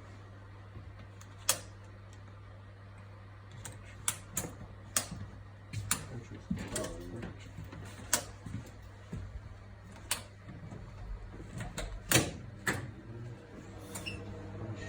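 Irregular sharp clicks and knocks, about ten of them spread through the stretch, over a steady low hum.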